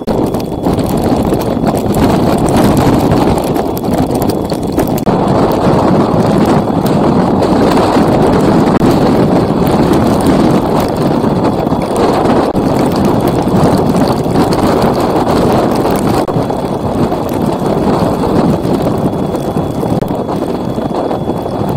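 Wind buffeting a trail camera's built-in microphone: a loud, steady rushing noise.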